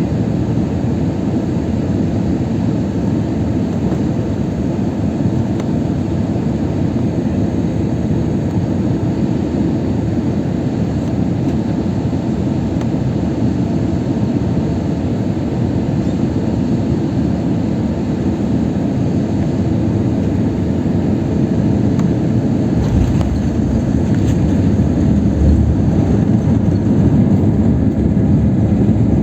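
Airliner cabin noise: a steady rumble of engines and airflow heard from inside the passenger cabin. It grows louder over the last several seconds, with a few low thumps.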